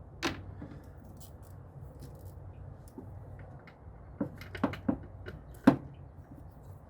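Hand tools and engine parts clinking and knocking during work on a Chevy 4.8 V8 teardown: a single knock, then a quick run of clinks, then one sharper, louder knock near the end, over a faint steady low hum.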